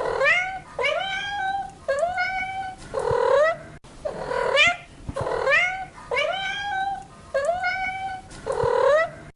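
Domestic cat meowing over and over, about one meow a second, each call rising in pitch and then holding.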